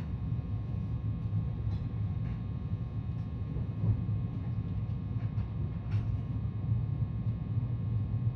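Steady low rumble of a JR West 223 series 2000 electric multiple unit running, heard from inside the passenger car, with a few faint clicks.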